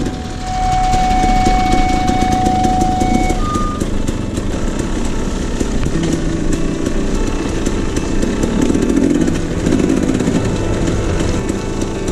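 Off-road vehicle engine running steadily while riding over a dirt trail. A steady high electronic tone sounds for about three seconds near the start, then a short higher beep.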